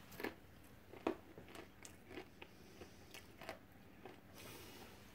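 A person chewing sweet-and-salty popcorn: faint, irregular crunching, with the sharpest crunch about a second in.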